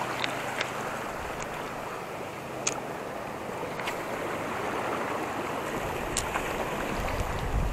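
Seawater washing and swirling over shoreline rocks, a steady rushing with a few faint clicks. A low rumble swells near the end.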